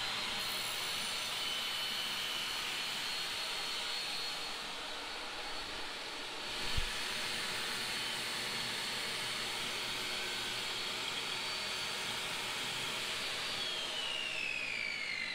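Benchtop table saw running at full speed with a steady high whine while a long cap strip is fed past the blade to cut a shallow groove along it, with one short knock about seven seconds in. Near the end the saw is switched off and the whine falls in pitch as the blade winds down.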